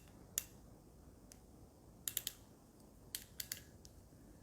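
Light, sharp clicks from a hand crimper and cable terminal being handled: a single click, then two quick groups of about three clicks each.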